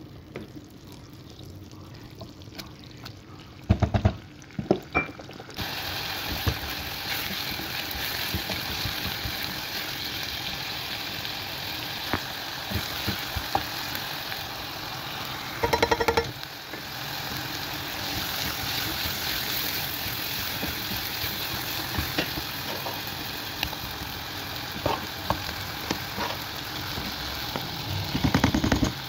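Metal ladle clinking against a saucepan and scraping thick béchamel sauce out onto a metal baking tray, with sharp clinks about four seconds in and again about halfway, and knocks from the tray near the end. A steady hiss sets in about five seconds in and runs under it.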